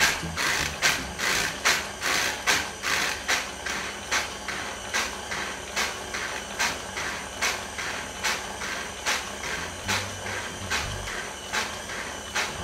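KitchenAid stand mixer running with its sifter-and-scale attachment sifting dry ingredients into the bowl. The sifter mechanism makes a steady run of sharp clicks, about two to three a second, a little fainter in the second half.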